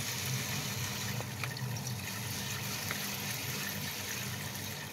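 Split moong dal grains poured from a plastic packet into a pot of water: a steady soft rush of pouring with a few small ticks, over a low steady hum.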